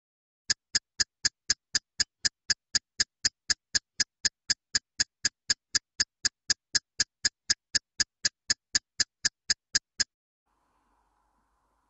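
Countdown timer sound effect: a steady clock-like ticking, about four ticks a second, that stops suddenly after about ten seconds.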